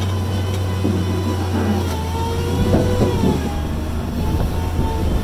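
Bobcat MT100 mini track loader's diesel engine running steadily under load, with whining tones that bend up and down as the bucket is driven into a pile of split firewood. A short clatter comes about halfway through.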